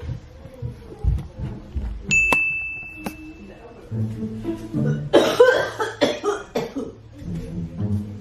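A person coughing in a cluster of harsh bursts over background music, after a short ringing tone about two seconds in.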